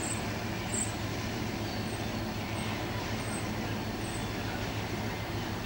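Steady low hum under an even hiss, with a few faint short high chirps over the top: outdoor background noise with no single event standing out.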